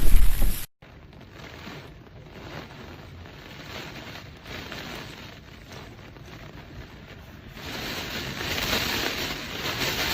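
Typhoon wind buffeting the microphone, which stops abruptly under a second in. Then comes a quieter, steady hiss of storm wind and water, which grows louder about eight seconds in.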